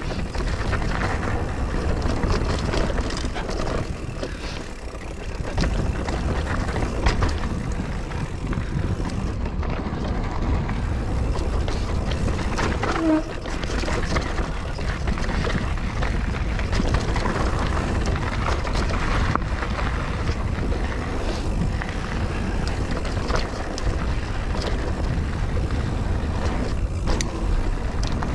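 Mountain bike being ridden along a dirt trail: wind buffeting the GoPro's microphone with a deep rushing, tyres rolling over the ground and the bike rattling and knocking over bumps in quick, irregular succession.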